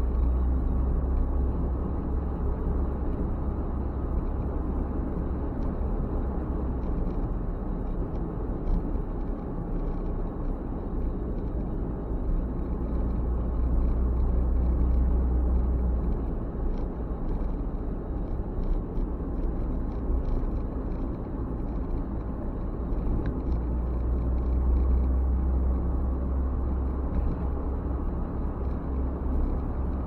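Car cabin noise while driving at road speed: a steady low rumble of tyres and engine, swelling louder about halfway through and again later on.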